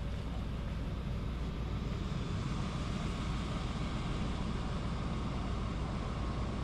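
Steady low rumble and hiss of a rainy street.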